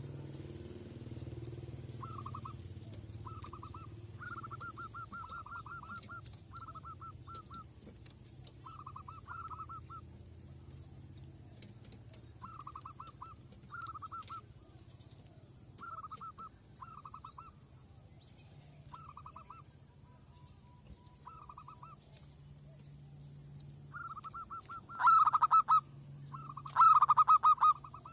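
Zebra doves cooing: short bursts of rapid, trilling staccato notes repeated every second or two, with two much louder bursts close by near the end.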